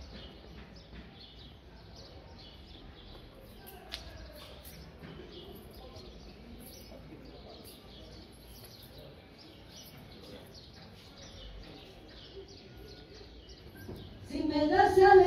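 Outdoor street ambience of small birds chirping over a murmur of distant voices, with a single click about four seconds in. Near the end, a song with a female singer comes in loudly.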